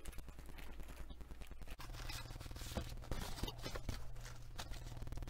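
Faint rustling and scraping of cardboard and paper being handled, with scattered small clicks and taps.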